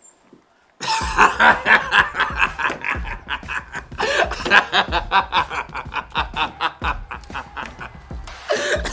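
Laughter over background music with a steady beat of about one low thump a second, starting about a second in after a brief near-silent pause.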